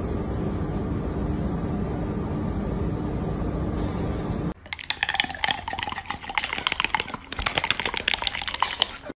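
Rapid, irregular crunching clicks of a small animal gnawing a yellow stick with its teeth, starting sharply about four and a half seconds in. Before that there is only a steady background hiss with a low hum.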